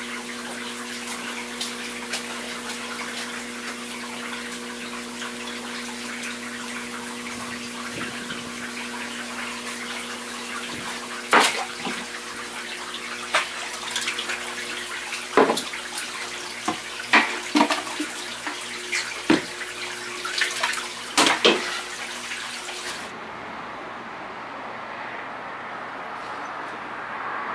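Water pouring into a tank of live hagfish, with a steady hum under it. From about 11 to 22 seconds come sharp splashes and knocks as a long-handled dip net scoops the hagfish out. The water noise and hum stop suddenly a few seconds before the end, leaving a quieter background.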